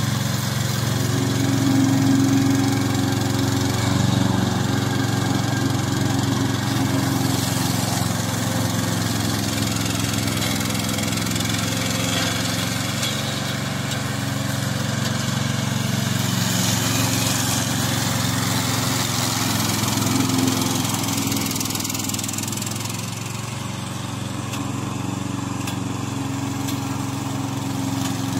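Single-cylinder four-stroke petrol engine of a remote-controlled tracked slope mower running steadily under load while it cuts through tall dry grass, dipping a little in level near the end.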